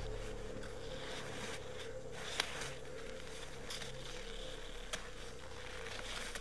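Boots crunching in snow at a slow climbing pace, with a few sharp clicks of trekking poles, over a steady low hum.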